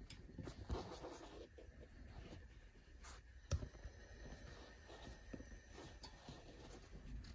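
Faint rustling and scraping of hands handling a fabric strip on a padded ironing board cover, with a few soft taps and one sharper knock about three and a half seconds in.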